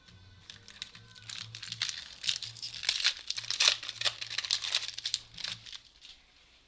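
Foil wrapper of a 2014 Topps Platinum Football pack crinkling and tearing as it is ripped open by hand, a dense run of crackles that fades out about six seconds in. Faint background music plays under it.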